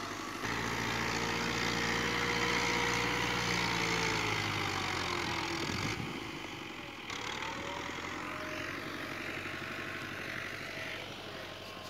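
Ghazi 680 tractor's diesel engine running under load as its front blade pushes soil, with the note dipping about five seconds in before it settles to a steadier, quieter run.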